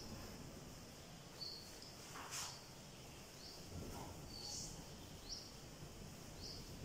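Faint short high chirps repeating about once a second, a bird calling, with a brief swish of a duster wiping a whiteboard about two seconds in.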